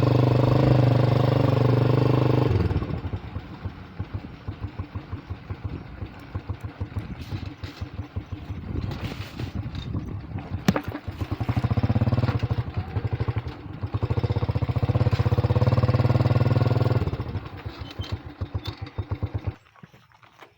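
Motorbike engine running at a steady pace, then dropping to a lumpy, pulsing low-speed run about three seconds in. It picks up again for a few seconds and falls back, and the engine sound stops shortly before the end.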